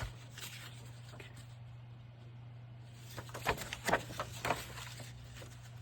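Sheets of paper handled and laid down while arranging journal pages: a few short rustles and taps between about three and five seconds in, over a steady low hum.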